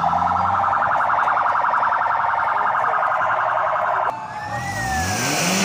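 Convoy siren sounding a rapid pulsing electronic warble, which cuts off abruptly about four seconds in. Then a passing vehicle with road noise takes over, its siren tones sliding up and then down.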